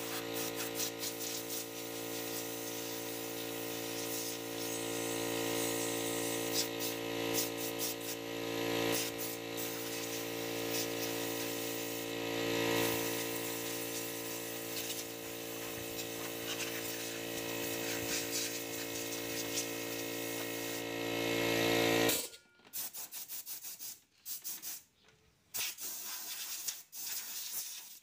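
A compressed-air blow gun hisses as it blows dust out of a car's engine bay, over a steady motor hum. About 22 seconds in the hum stops abruptly, and only short blasts of air follow.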